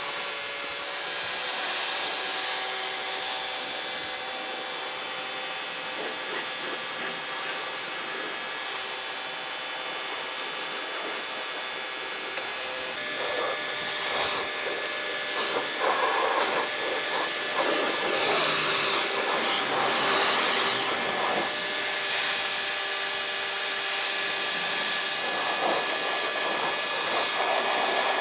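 Pressure washer running and spraying water over a car body to rinse the soap off: a steady hiss over a constant motor whine. The spray gets louder and more uneven from about halfway through.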